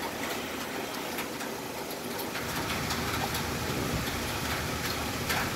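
A steady low engine rumble, like a motor vehicle running or passing, getting a little louder about two seconds in, with a few faint clicks.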